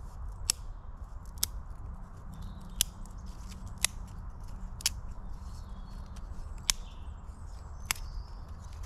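Thin twigs snapped by hand into short pieces: about seven sharp snaps, roughly one a second.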